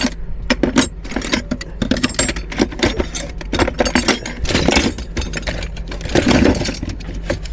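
Metal hand tools clinking and clattering in quick, irregular clicks, as spanners are rummaged through and handled.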